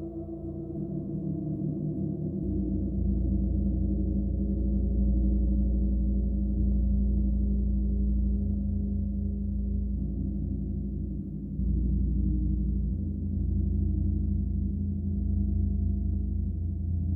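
Gong ringing and swelling, a dense wash of sustained deep tones that builds up a few seconds in and keeps droning, with a short dip about two-thirds of the way through before it swells again.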